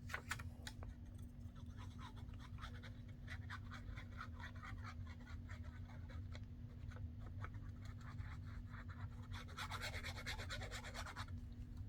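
Paper and card being handled and rubbed down: light scratching and rustling, with a denser stretch of rubbing about nine and a half seconds in, over a faint steady hum.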